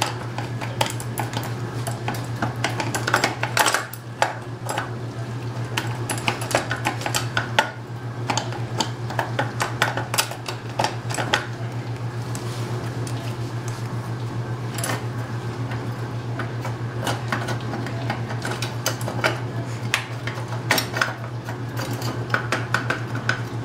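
Steel crank being worked back and forth through the bottom bracket shell of a child's bicycle, with the loose chain: irregular metallic clinks, knocks and rattles over a steady low hum.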